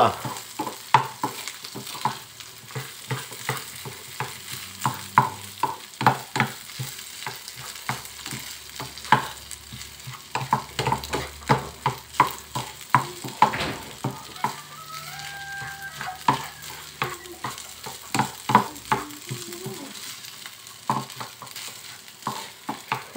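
Spatula scraping and knocking against a non-stick frying pan as rice and egg are stir-fried, in quick, irregular strokes over a steady light sizzle.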